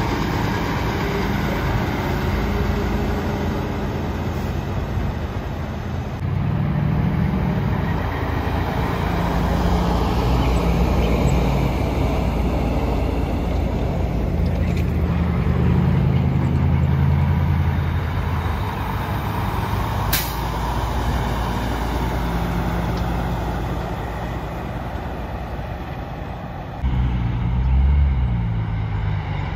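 Diesel semi-truck engines running and pulling away as tractor-trailers move through an intersection. The engine note rises and falls, with a sharp click about two-thirds of the way through and a sudden louder low rumble near the end.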